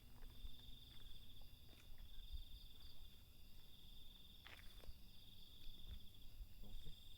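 Field crickets chirping at night in a fast, steady trill that breaks off and resumes in stretches, with a second fainter chirping higher up. A brief higher call cuts across about four and a half seconds in.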